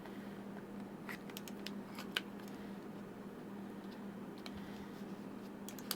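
Faint plastic clicks and taps of a dummy battery adapter being handled and pushed into a Canon DSLR's battery compartment, a cluster of clicks between one and two seconds in and a few more near the end, over a steady low hum.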